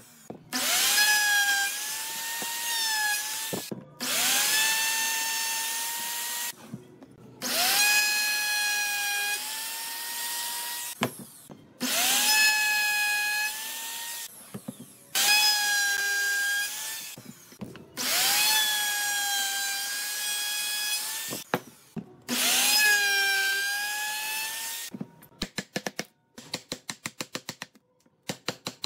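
Electric drill boring into hardwood in about seven bursts of two to three seconds each, its motor whine dipping as the bit bites and then holding steady, with brief pauses between holes. Near the end the drilling stops and a fast run of sharp clicks follows.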